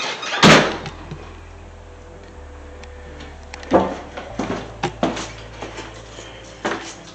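A door bangs shut about half a second in, then a run of uneven footstep knocks on stairs, with handling rumble underneath.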